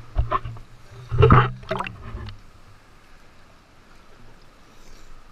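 Sea water sloshing and splashing against a camera bobbing at the water's surface, in rough bursts over the first two seconds, loudest a little over a second in, then settling to faint lapping.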